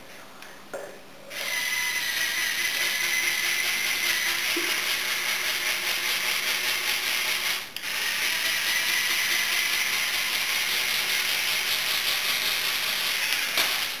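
LEGO Technic Power Functions motors driving the vehicle's gear train and tracks, a steady whirring gear whine. It starts about a second in, cuts out for a moment about halfway through, then runs again until just before the end.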